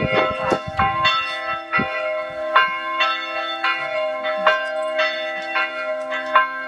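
Church bells ringing: repeated strokes about twice a second, each leaving a ringing tone, over a steady low hum from the bells.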